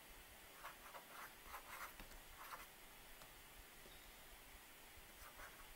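Faint scratching and tapping of a stylus writing on a tablet screen, in a run of short strokes about a second in and a few more near the end.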